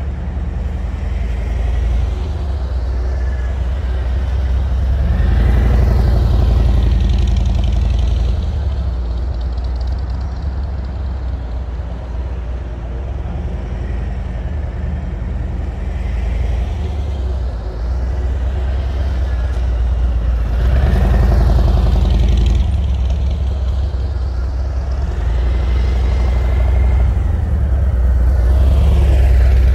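Harley-Davidson Road Glide Special's V-twin engine running as the bike is ridden around, growing loud and fading again as it passes close three times: about six seconds in, about twenty-one seconds in, and near the end.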